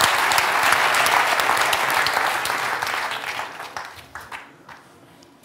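Audience applauding. The clapping is full for the first three seconds, then dies away, with only a few scattered claps left near the end.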